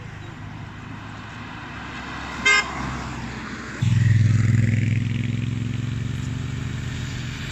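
A short car horn toot from a passing escort car, then a motorcycle engine running loud and steady as the escort motorcycle comes up the road, slowly fading.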